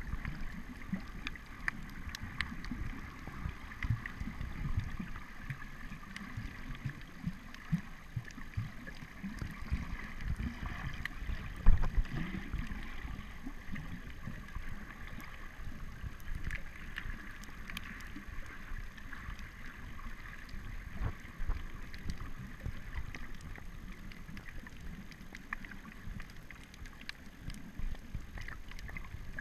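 Underwater sound recorded through a waterproof camera housing: a steady, muffled rumble of water moving against the housing, with scattered faint clicks and crackle. There is one sharp knock near the middle.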